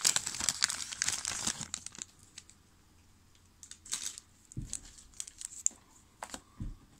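Trading-card pack wrapper crinkling and tearing as it is opened, dense for about two seconds. Then come a few scattered rustles and two soft thumps as the cards are handled.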